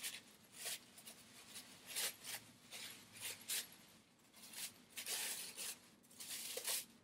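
Tissue paper rustling and crinkling in irregular bursts as it is unwrapped by hand.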